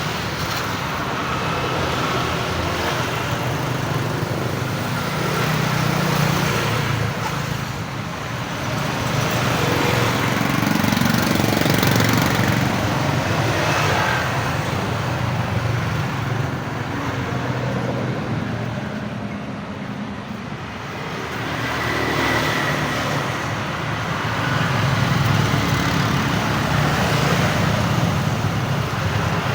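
Steady road traffic noise, swelling and fading as vehicles pass.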